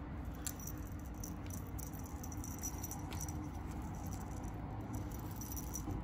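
A cat wand toy's ribbon streamers rustling and rattling as a kitten bats and grabs at it, in quick light ticks and rustles over a steady low hum.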